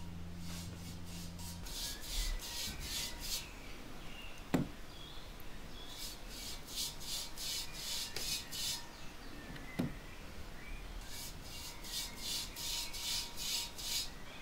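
A paintbrush stroking copper wash onto the unglazed surface of a ceramic moon jar: three runs of quick, scratchy brush strokes, about three a second, with two sharp clicks in between.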